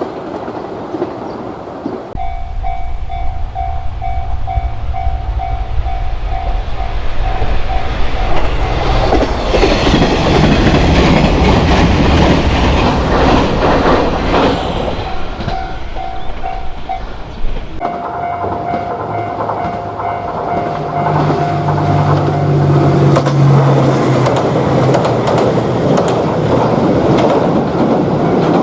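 A Japanese level-crossing alarm bell dings at about two strikes a second, then a diesel train rumbles and clatters over the crossing. After an abrupt change, another crossing bell rings more steadily while a second train passes with a low drone and rail noise.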